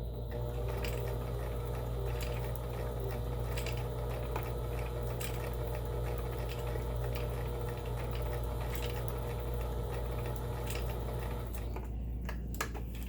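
Kenmore 17922 electronic sewing machine sewing a test stitch at steady speed: an even motor hum with the needle mechanism running, and faint clicks. The machine stops about a second before the end.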